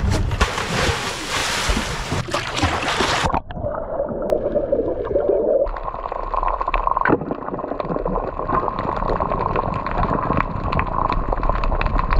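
Sea water on an action camera: a loud rush of splashing noise, cutting off abruptly about three seconds in to muffled underwater gurgling, then steady underwater crackling with many quick clicks.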